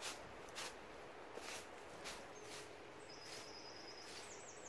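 A bristle broom swept in short strokes over a dirt and grass path, a stroke every half second to second. In the second half a small bird sings a high phrase: a held note, then a quick run of falling notes.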